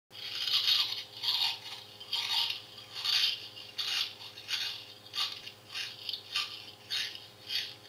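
Talking Stimpy plush toy playing rasping fart noises through its small speaker: about a dozen short bursts, one every 0.7 seconds or so, slowly getting weaker.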